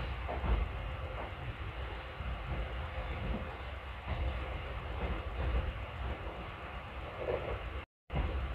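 Steady low rumble of a passenger train, with a few faint clanks. The sound cuts out abruptly for a split second near the end.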